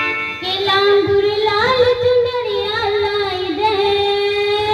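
A girl singing a Hindi devotional song into a microphone, holding one long note with wavering ornaments that starts about half a second in.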